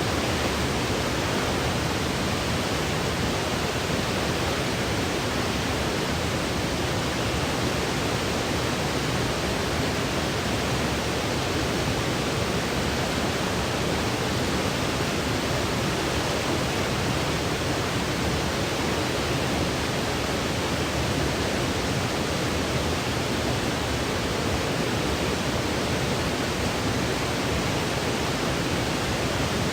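Steady, unbroken white noise: an even hiss spread from deep to high pitches, with no changes or events.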